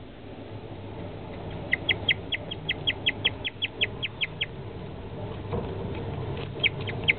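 Guinea pig chirping: a quick run of short, high, bird-like chirps, about five a second, starting nearly two seconds in and stopping around four and a half seconds, then a few more near the end.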